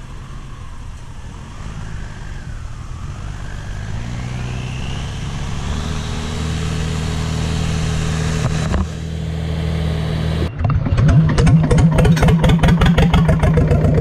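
Vintage tractor engine running steadily and growing louder. About ten seconds in it gives way abruptly to an old stationary engine running with a loud, quick, even firing beat.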